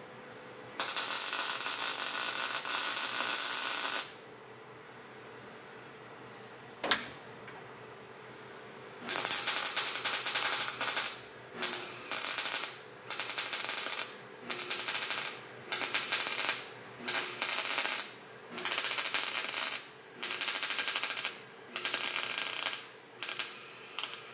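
Welding arc crackling as roll-cage tubing is welded overhead to the car's roof and A-pillar. It begins with one long weld of about three seconds. After a pause and a single sharp click, about a dozen short welds of roughly a second each follow in quick succession, a stitch of tack welds.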